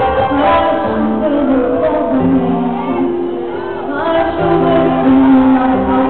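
A live worship band plays with held, sustained singing, echoing in a large hall as heard from within the crowd.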